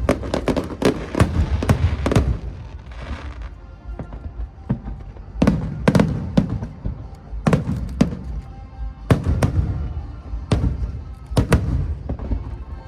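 Aerial fireworks bursting in an irregular series of sharp bangs, with low rumbling between them and music playing underneath.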